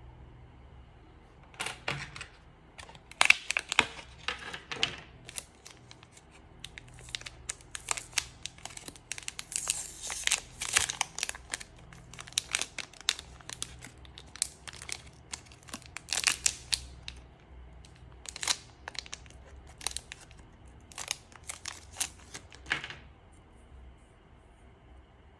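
Hands handling crinkly plastic and small hard parts: irregular crinkling, rustling and sharp clicks, which stop a couple of seconds before the end.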